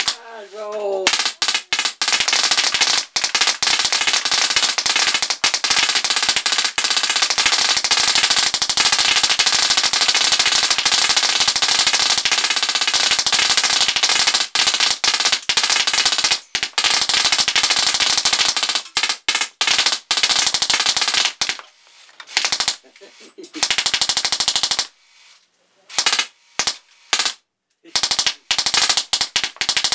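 Drozd Blackbird full-auto BB gun firing a long unbroken stream of rapid shots, the BBs smacking into and shattering the targets. After about twenty seconds the fire breaks into shorter bursts with pauses between them.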